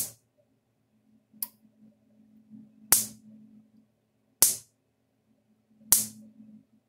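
High-current sparks from a Stafix M36R (Speedrite 36000R) electric fence energizer snapping across a small air gap from its hot terminal to a grounded test lead, one sharp crack with each pulse, about every second and a half. The one about a second and a half in is much weaker than the rest.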